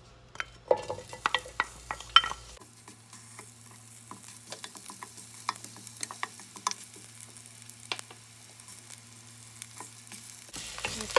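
Sliced onion dropped into hot avocado oil in a square nonstick frying pan: a run of knocks in the first couple of seconds, then a quiet sizzle with a wooden spatula clicking and scraping as it stirs. The sizzle turns much louder near the end.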